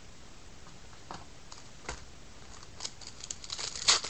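Trading cards being handled by hand: a few separate light clicks, then a quick run of crinkling and snapping card-and-packaging noise in the last second, loudest just before the end.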